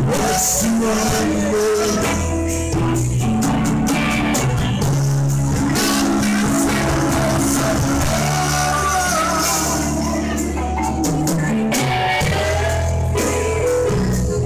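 A live rock band playing: electric guitars over bass and drums, with a keyboard on stage.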